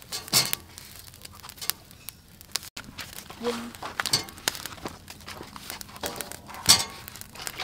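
Husk-wrapped ears of corn being handled and set down on a metal grill grate. The dry green husks rustle and crinkle, with irregular clicks and knocks as the ears meet the grate, the sharpest knock near the end.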